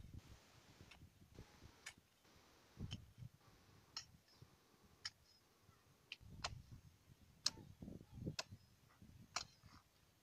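Hand hoe chopping into soil, a sharp knock with a dull thud roughly once a second.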